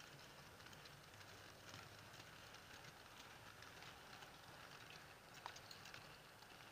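Faint irregular clicking and rumble of model railway goods wagons' wheels running over the track as the train rolls past.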